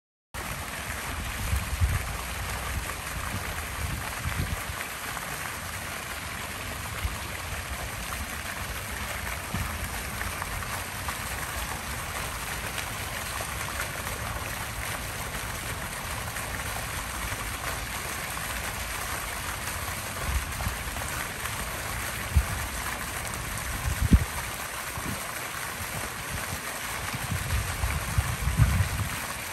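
Steady rushing noise like running water, with irregular low rumbles and a few soft thumps. The sharpest thump comes about three-quarters of the way through, and a cluster of them comes near the end.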